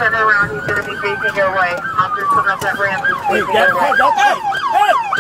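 Several police car sirens sounding together. One holds a slow wail that falls gently in pitch. A faster warbling pattern runs over it. About three seconds in, the sirens switch to a rapid yelp of about four sweeps a second.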